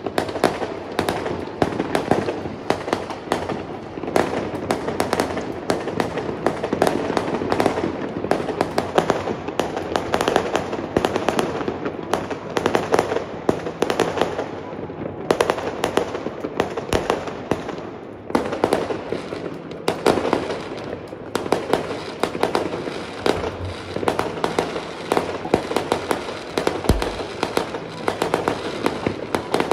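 Many fireworks going off at once, a dense, unbroken crackle of bangs and pops from aerial shells bursting in the sky.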